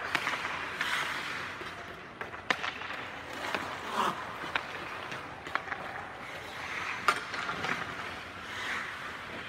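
Ice hockey skate blades scraping and carving across the ice in swelling strides, with several sharp clacks of stick and puck, the loudest about seven seconds in.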